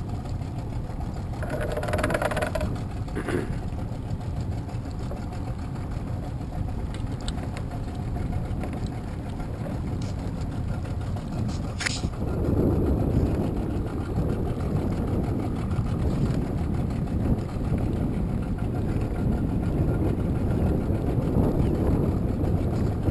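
Small crabbing boat's motor running at idle, a steady low rumble mixed with wind and water noise as the boat works slowly along a trotline. A single sharp click comes about twelve seconds in.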